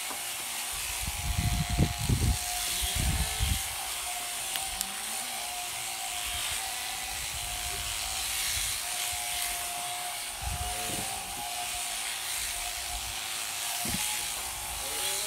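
Sheep shearing machines with overhead hanging motors running steadily, their handpieces cutting fleece, with one held whine over a hiss. A few low thumps sound about one to three and a half seconds in and again near eleven seconds.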